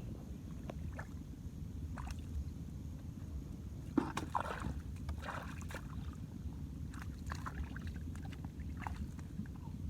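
Shallow water splashing and sloshing in short irregular bursts, busiest about four to six seconds in, over a steady low rumble.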